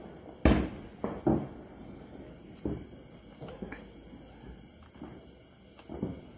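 Knife blade cutting through a sheet of kaju katli, knocking several times at irregular intervals on the surface beneath. Crickets chirp steadily behind it.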